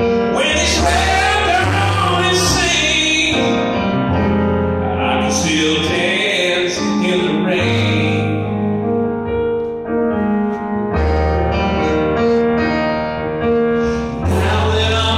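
A man singing live, accompanying himself with piano chords on a stage keyboard; the low bass note of the chords changes every second or two.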